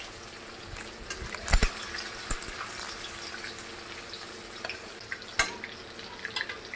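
Fish pieces shallow-frying in hot oil in a wok, sizzling steadily, with a few sharp pops from the oil.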